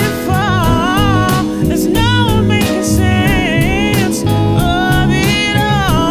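Soul-blues song playing: a lead line that slides and bends in pitch over bass and a steady drum beat.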